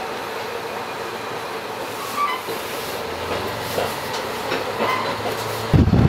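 Diesel railcar train running on the rails, a steady rolling noise with faint clickety-clack. Near the end a sudden, much louder low rumbling noise cuts in.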